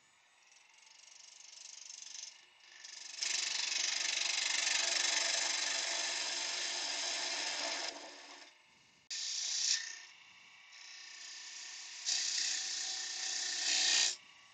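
Turning gouge cutting across the face of a wood blank spinning on a lathe, a scraping cut in several passes that clean up the face. The cut is loudest from about three to eight seconds in and again near the end, with quieter stretches between.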